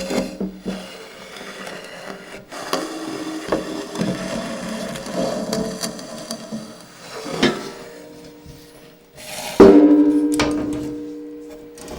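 Scraping, rubbing and small knocks on a hard, wood-like surface, then a sudden loud strike near the end that rings with a steady pitched tone and fades over about two seconds.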